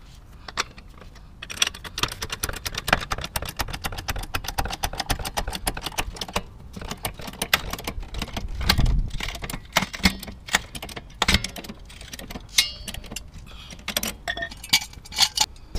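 Hydraulic trolley jack being pumped by its long handle, lifting a car: a fast run of metallic clicks and clacks, with a louder low thump about nine seconds in.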